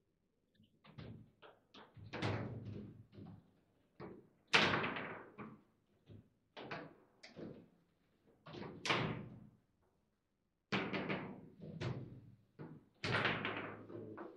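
Table football play: a run of sharp knocks and clacks as the ball is struck by the rod men and the rods bang, with the loudest bangs about four and a half, nine and thirteen seconds in.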